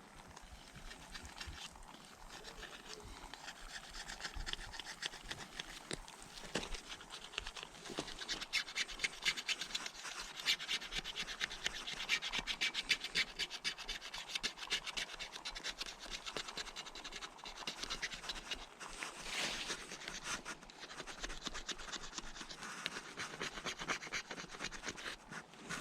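Plastic gift card scraping softened paint off a dirt bike frame in quick, repeated rasping strokes.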